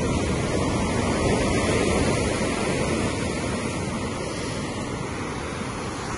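Surf washing on the shore mixed with wind, a steady noisy hiss that eases a little toward the end.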